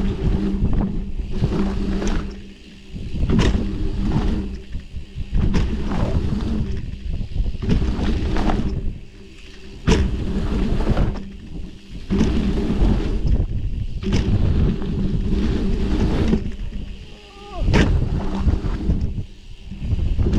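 Dirt jump bike riding a jump line, heard from a microphone on the bike: tyres rumbling over hard-packed dirt with wind buffeting, the rumble dropping away every few seconds and returning with sharp knocks as the bike goes over and lands the jumps.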